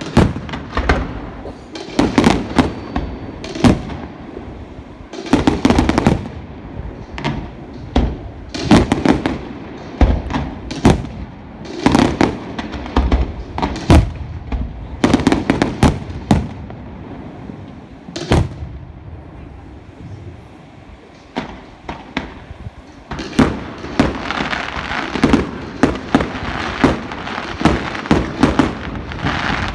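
Fireworks display: sharp bangs and crackling bursts going off every second or two. After a brief lull they thicken into a dense, rapid crackle near the end.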